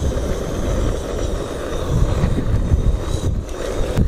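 Strong gusty wind rumbling on the microphone over the steady burn of a SOTO regulator gas stove heating a pot of water.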